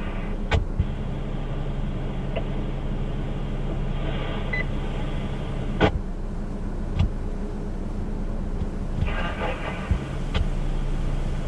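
Radio receiver hiss over a steady electrical hum, broken by a few sharp clicks and faint, unclear bits of radio chatter.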